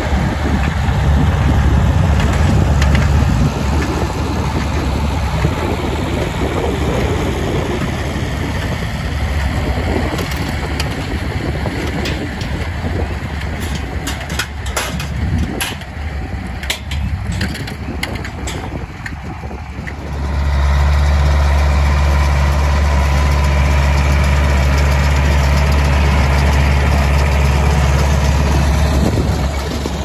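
International 885XL tractor's diesel engine running steadily as it pulls an International 445 small-bale baler through the hay. It is loud at first, drops to a more distant drone through the middle with a scatter of sharp clicks, and is loud and steady again from about two-thirds of the way in.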